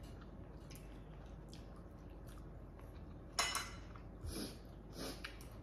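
Chopsticks and a spoon tapping small ceramic rice bowls: one sharp clink about three and a half seconds in, then a couple of softer taps.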